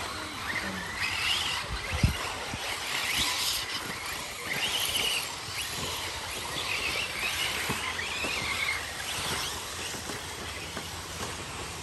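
Radio-controlled race cars' motors whining, rising and falling in pitch over and over as the cars accelerate and brake around the track. A single sharp knock comes about two seconds in.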